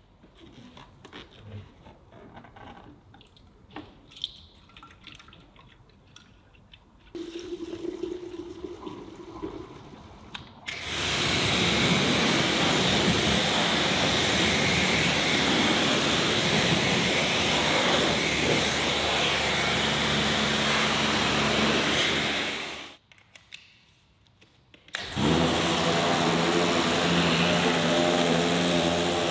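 Pressure washer spraying a jet of water onto a car's wheel and tyre: a loud steady hiss that starts about a third of the way in, stops for about two seconds, then starts again with the pump motor's steady hum underneath. Before the spraying there are only faint clicks of the lance being handled and a short low hum.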